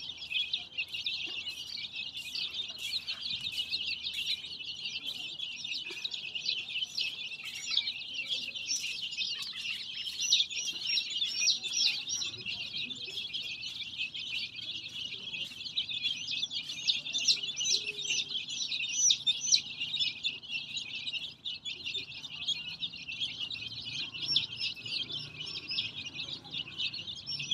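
A flock of young chicks peeping continuously: many high chirps overlapping in a dense chorus.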